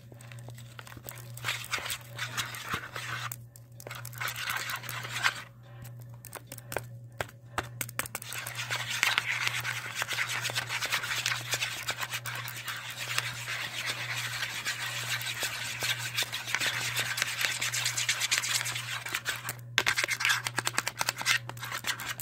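Homemade slime being mixed by hand, a sticky clicking and crackling that grows denser and steadier about eight seconds in, over a steady low hum.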